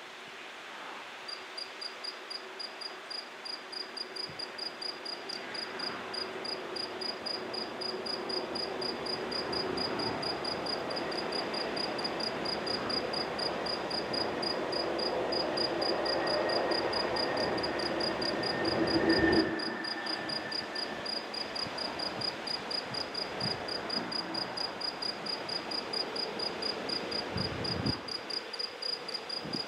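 A cricket chirping at night in a steady, even rhythm of high-pitched pulses, a few per second, over a rushing background noise that builds and then drops off abruptly about two-thirds of the way through.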